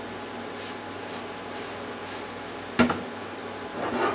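Objects handled on a kitchen counter: a single sharp knock about three seconds in and a softer clatter near the end, over a steady background hum.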